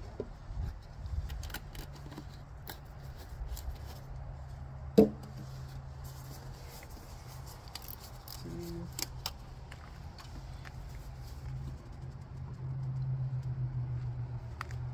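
Scattered light clicks and taps from handling plastic fluid bottles and a funnel, with one sharper knock about five seconds in, over a steady low hum.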